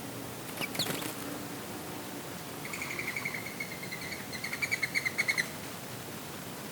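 Songbird calling: a couple of quick falling notes about a second in, then a run of repeated chirps that speed up and grow louder before stopping, over a steady breeze hiss.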